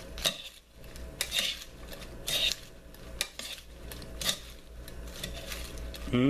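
Metal salad tongs tossing dressed romaine lettuce in a bowl. Irregular clinks and scrapes of metal on the bowl come about once a second, with the soft wet rustle of the leaves between them.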